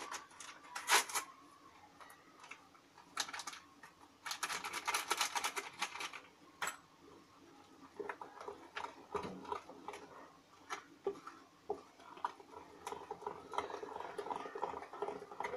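Hand whisk beating cake batter in a glass bowl: rapid clicking and tapping of the whisk against the bowl, in bursts that are loudest about four to six seconds in, then softer and more scattered.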